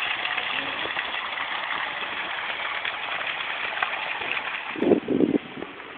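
Garden pond fountain splashing, a steady rush of falling water that thins about four seconds in. Near the end come two short low bumps, the loudest sounds here.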